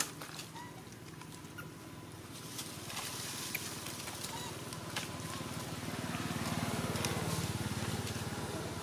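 Outdoor ambience: a steady low hum that grows louder in the second half, with scattered light clicks and a few short, faint chirps.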